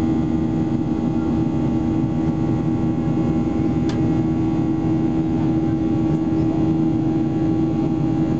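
Cabin noise inside a Boeing 737-800 climbing out after takeoff, heard from a window seat over the wing. The CFM56-7B turbofans and the rushing air make a steady roar with a constant low hum, and one faint click comes about four seconds in.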